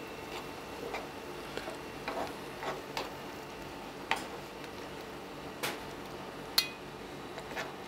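Spoon stirring an egg yolk and lemon sauce through beef, onions and prosciutto in a frying pan, clicking against the pan about once a second, to bind the sauce.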